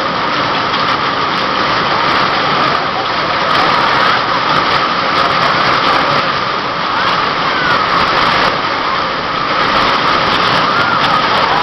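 Heavy rain pouring down, a loud steady hiss with no let-up.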